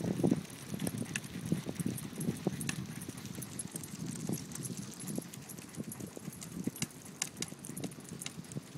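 Two shepherd dogs trotting in harness ahead of a Sacco dog cart on wet asphalt: a quick, irregular patter of paws and sharp claw clicks over the low steady noise of the cart rolling.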